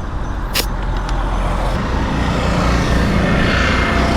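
Road noise of a motorcycle being ridden: engine running under a steady wash of wind and traffic noise that slowly grows louder, with one sharp click about half a second in.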